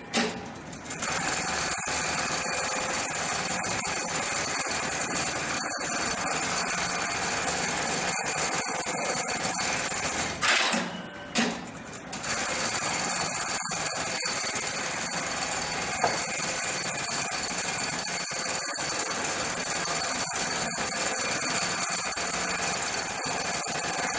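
Hightex computer-controlled industrial pattern sewing machine running, stitching a programmed pattern through heavy material while its clamp frame is driven across the table. It breaks off briefly twice, just after the start and about eleven seconds in.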